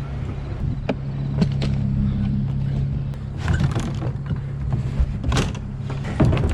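An engine idling steadily as a low, even hum, with scattered knocks and short scraping bursts over it.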